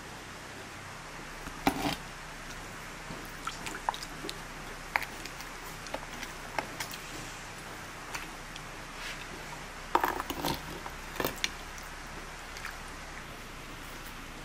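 Tableware clinking and tapping as broth is served: a metal ladle knocking against a clay pot and bowls set down, in scattered light knocks with a cluster of louder ones about ten seconds in.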